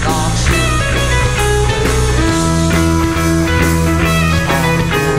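Live rock band playing an instrumental passage on electric guitars, bass guitar and drum kit, with held bass and guitar notes over steady drumming and cymbals.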